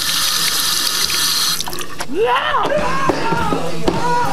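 Water running steadily, as from a tap, then cutting off abruptly; after it, a pitched sound sliding up and down in long arcs.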